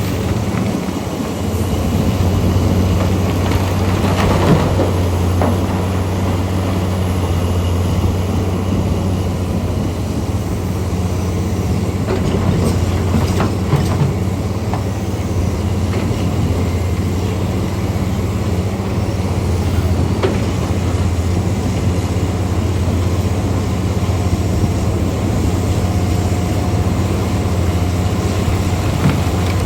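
Heavy diesel mining machinery running steadily with a deep drone, with a few brief knocks scattered through.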